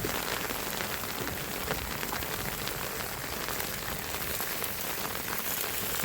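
Steady rain pattering on a surface, a dense even patter of fine drops.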